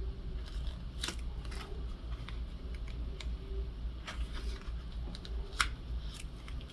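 Scattered small clicks and rustles of paper and ribbon being handled and pressed into place, over a low steady hum.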